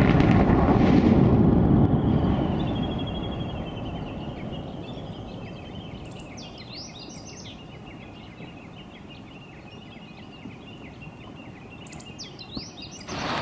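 Volcanic eruption blast: a sudden loud boom that rolls on as a rumbling roar and fades over several seconds into a low steady rumble. Birds chirp over it.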